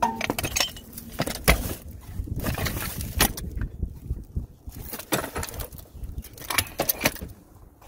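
A floor jack and its long metal handle being handled and packed into a car trunk: a run of sharp knocks and clatter at irregular intervals.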